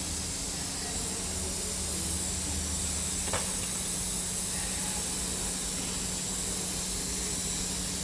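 Steady workshop background hiss with a low hum, and a single light click about three seconds in.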